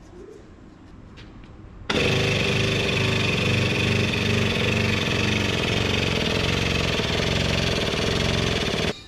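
A shop machine's motor runs loudly for about seven seconds. It switches on abruptly about two seconds in and cuts off abruptly near the end, a steady whir with a regular low pulsing beneath it.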